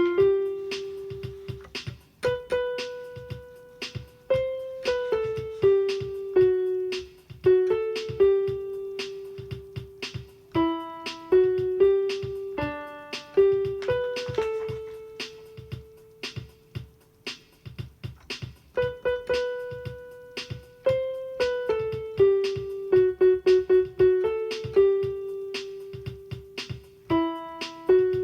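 Piano playing a melody of single struck notes that ring and fade, some held for a couple of seconds, over a soft low accompaniment.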